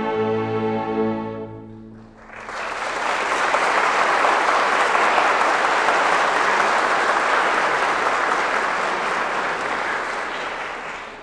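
A string orchestra's held closing chord fading out, followed about two seconds in by audience applause that goes on and dies away near the end.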